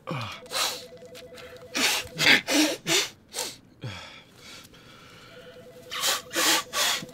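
A man sniffling through a stuffy, allergy-blocked nose: quick hissing sniffs in clusters, one early, about five in a row around the middle, and three more near the end.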